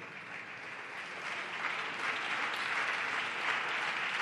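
Deputies applauding from their benches, the clapping starting softly and swelling over the first couple of seconds, then holding steady.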